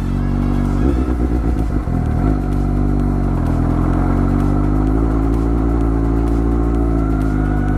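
Suzuki GSX-S750 inline-four engine running at low speed while the bike rolls in to park. There are a few throttle blips in the first couple of seconds, then it settles into a steady, even note.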